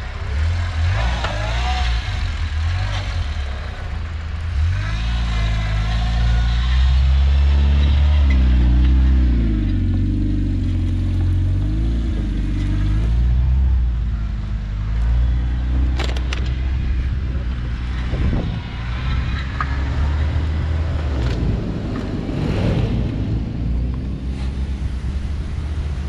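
Jeep Wrangler's engine labouring through soft sand dunes, revving up and down with a steady low rumble, the pitch climbing and falling several times around the middle. A single sharp click comes about two-thirds of the way through.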